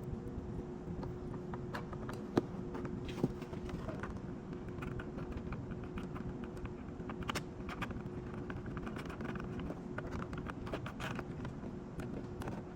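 Small scattered plastic clicks and rubbing of hands fitting a flush-mount turn signal into a motorcycle fairing and screwing on its plastic nut, with two sharper clicks a few seconds in. A steady hum runs underneath.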